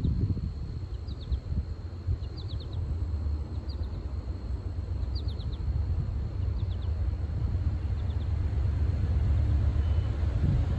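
Low wind rumble on the microphone that grows gradually louder toward the end, with a small bird chirping in quick runs of three or four falling notes about once a second.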